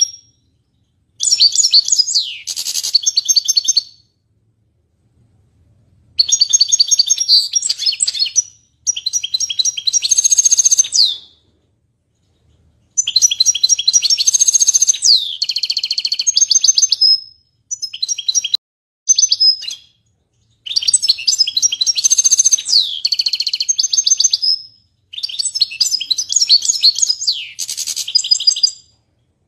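Caged goldfinch singing: loud phrases of rapid, high twittering and trilling, each lasting one to four seconds, broken by short pauses.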